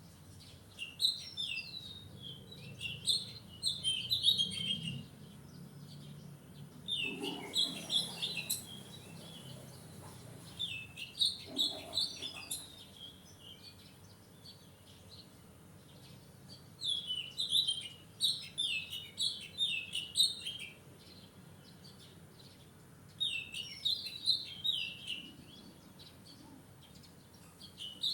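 Wild songbird singing: several phrases of quick, high chirps, each lasting a few seconds, with short pauses between them.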